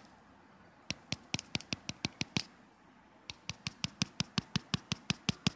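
A rapid series of sharp clicks or taps: a quick run of about eight starting about a second in, a short pause, then a steady train of about four to five a second.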